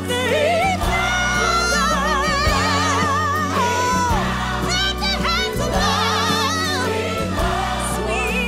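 Background music: a song with a singing voice holding long notes with vibrato over a steady accompaniment.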